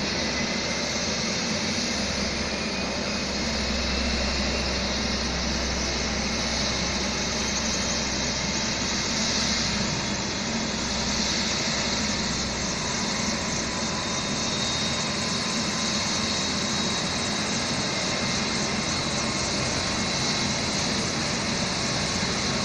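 Helicopter's turbine engine running steadily: a high whine over a dense rushing noise, with no rise or fall.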